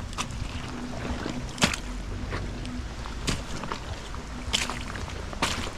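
Wind buffeting the microphone over a steady low rumble, with sharp knocks or splashes about once a second.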